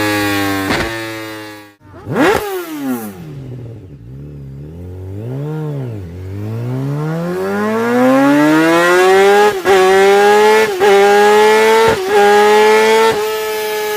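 Sports motorcycle engine revving hard through its exhaust. It runs high and steady, cuts out about two seconds in and falls steeply in pitch. After a low, wavering stretch it climbs back up and holds at high revs, broken by four short dips near the end.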